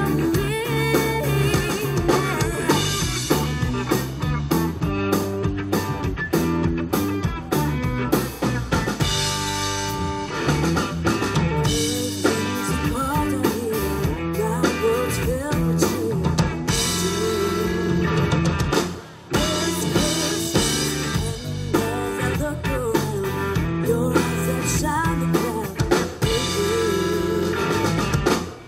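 Live rock band: a woman singing lead into a microphone over drum kit, electric bass and electric guitar, with a brief break in the music about two-thirds of the way through.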